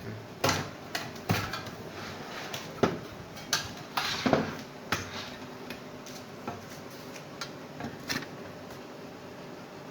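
Metal clinks and knocks of a Dell computer power supply's metal case, screws and tools being handled as it is taken apart. The sharp, irregular knocks come thickest in the first five seconds and grow sparser after, over a steady low hum.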